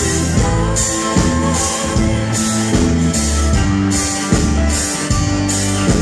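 Live country band playing an instrumental passage with a steady drum beat, acoustic guitar and mandolin strumming over keyboards and electric guitar.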